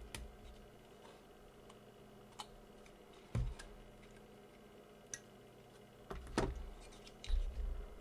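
Scattered light clicks and taps of small objects being handled on a workbench, with dull knocks about three and a half, six and seven and a half seconds in.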